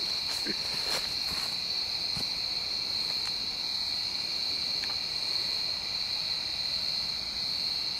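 Steady high-pitched chorus of night insects, one unbroken shrill tone, with a few faint clicks in the first two seconds.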